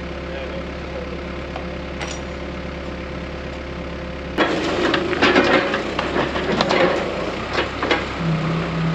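Engine idling steadily. About four seconds in it is joined by a sudden louder run of knocks and clatter that goes on to the end.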